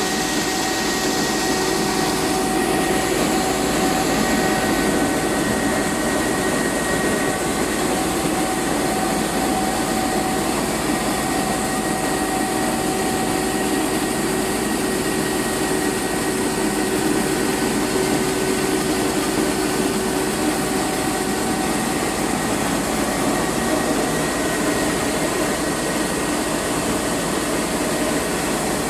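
Rice milling plant machinery running steadily: a loud, even mechanical noise with a few steady whining tones over it.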